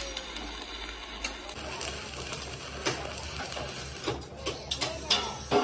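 Arc welding on the steel of an excavator bucket: a steady crackling hiss from the arc, with a few sharp pops from about halfway through and near the end. A low pulsing hum comes in about a second and a half in.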